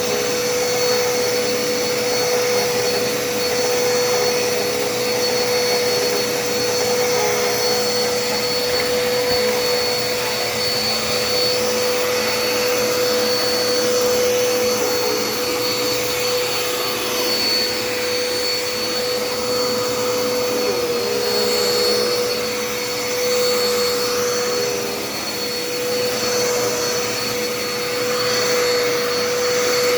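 Vacuum cleaner running continuously, a steady motor whine over a rushing of air, rising and falling slightly as it is worked across the floor.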